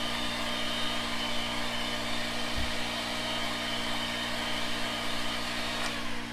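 Handheld electric mixer running steadily as it beats casting investment slurry in a bowl, then switched off with a click near the end.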